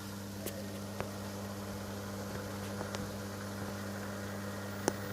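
Steady electrical hum with a faint hiss, broken by a few short sharp clicks, the loudest near the end.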